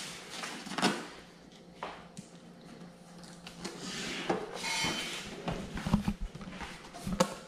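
Cardboard packaging being handled and opened: the box's flaps pulled apart and folded back, with rubbing and scraping of cardboard and a few light knocks.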